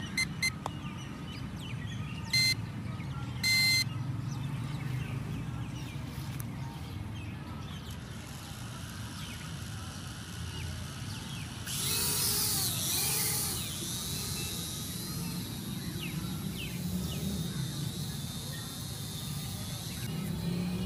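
Two short electronic beeps, then about twelve seconds in a small folding quadcopter drone's propeller motors spin up with a wavering whine that settles into a faint steady high whine.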